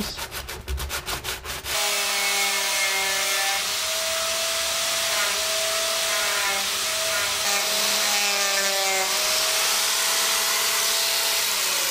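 Angle grinder running against the steel windscreen frame, a steady whine that wavers slightly as it is pressed on and eased off, over a harsh grinding hiss. It starts about two seconds in after some quick rasping strokes, and its pitch begins to drop as it winds down near the end.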